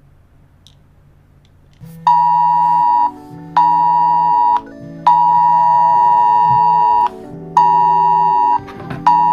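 Synthesized emergency-alert tones: after about two seconds of faint hum, a high steady tone sounds in pulses of about one, one, two and one seconds, with another starting near the end, over a low held tone and a sustained chord.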